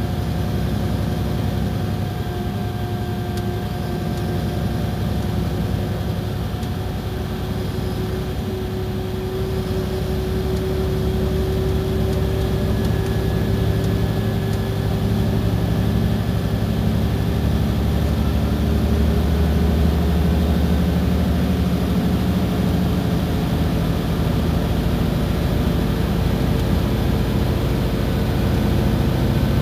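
Iveco Crossway Line bus engine and drivetrain running under way: a steady low drone with a whine that climbs slowly in pitch. It grows a little louder from about ten seconds in.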